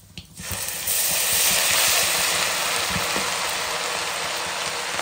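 Hot oil in a kadai bursting into loud sizzling about half a second in as a moist ingredient is added, settling into a steady frying hiss while it is stirred with a spoon.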